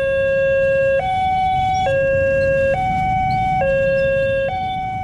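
Electronic two-tone warning alarm of a railway level crossing signal, switching between a lower and a higher tone just under once a second, over a low background rumble. It is the sign that a train is approaching and the crossing barrier is coming down.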